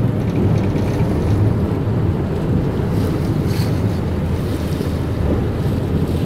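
Steady wind rumble on the microphone, mixed with water rushing and splashing at the stern of a sportfishing boat under way, and the boat's engines running underneath.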